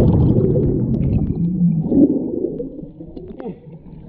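Low underwater rumble with gurgling and a few faint moaning tones, fading away steadily toward the end.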